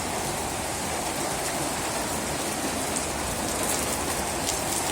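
Steady heavy rain falling and splashing on surfaces, with a few faint drop ticks.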